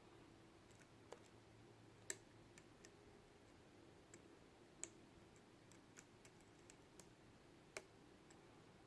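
Faint, irregular small metal clicks of a flag pick working the dimple pins of a Mul-T-Lock Jr. lock core under turning tension, as pins click and set. The sharpest clicks come about two, five and eight seconds in.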